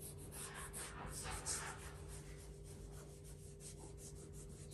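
Cotton swab soaked in solvent rubbing back and forth over a painted sign, faint quick even scrubbing strokes, several a second, as it lifts leftover glue from removed vinyl lettering. A steady low hum runs underneath.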